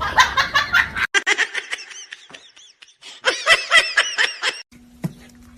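High-pitched laughter in quick repeated bursts, in two runs with a short pause between them.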